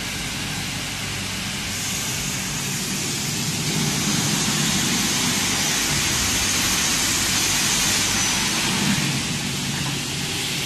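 Double-head aluminium cutting saw running, its motors and blades giving a steady machine noise with a high whine that sets in about two seconds in; it grows louder from about four seconds in until near the end.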